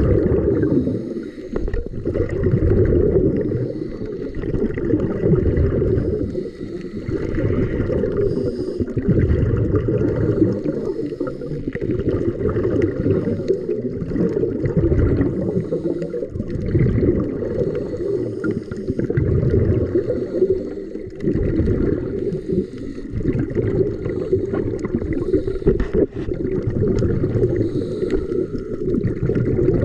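Underwater sound heard through a camera housing: scuba divers' exhaled bubbles gurgling up from their regulators, swelling in bursts every few seconds over a low muffled rumble.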